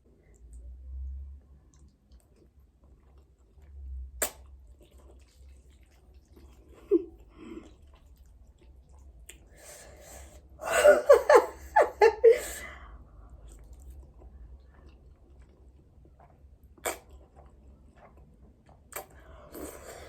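A person eating spicy noodles: quiet chewing, with a loud two-second burst of slurping and breathing mouth sounds about halfway through and a few sharp utensil clicks.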